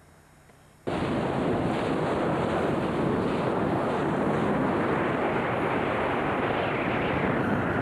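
Steady rushing wind on the microphone and water noise aboard a boat under way on open water, starting abruptly about a second in.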